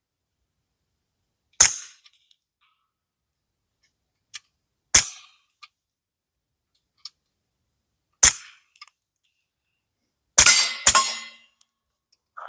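Suppressed .22 LR shots through a B&T rimfire suppressor: five sharp reports, the first three about three seconds apart, then two in quick succession near the end, with faint small clicks between shots.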